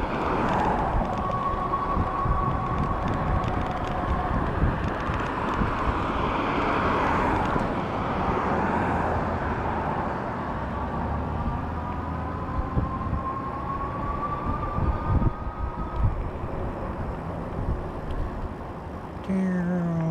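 Wind buffeting the microphone while riding a fat-tire electric bike, with the electric motor's faint whine rising in pitch twice as the bike speeds up. Near the end a louder, lower hum cuts in abruptly.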